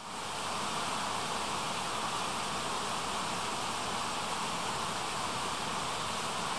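Steady, even rushing noise, like a stream or wind. It rises from silence at the very start, then holds level, with no distinct calls or knocks.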